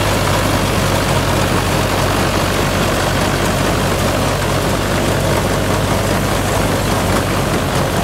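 Mahindra Arjun Novo 605 tractor's 50 hp diesel engine running steadily under load in low gear, driving a tractor-drawn straw reaper whose machinery adds a dense rushing clatter. The sound stays even, with no change in engine speed.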